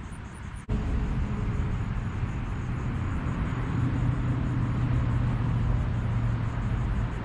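Road traffic: a motor vehicle's engine hum and tyre noise, steady and swelling slightly before easing. It starts after a brief drop-out under a second in.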